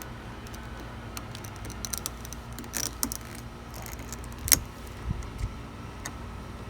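Light clicks and scrapes of a small flathead screwdriver prying at a plastic trim piece around an SUV's exterior door handle, with one sharper click about four and a half seconds in.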